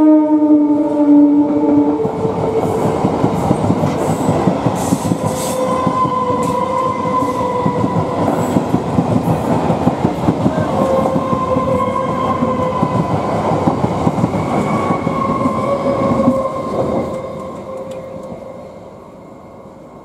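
EMU electric local train passing at speed: its horn sounds for the first couple of seconds, then the wheels clatter rapidly over the rail with a steady whine beneath. The sound fades away over the last few seconds as the final coaches go by.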